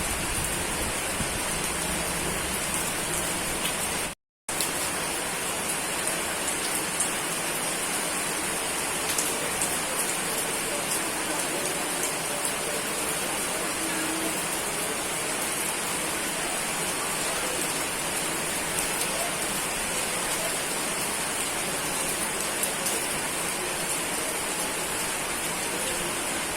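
Steady rain falling, an even hiss with scattered small drop ticks. It cuts out to silence for a split second about four seconds in, then resumes unchanged.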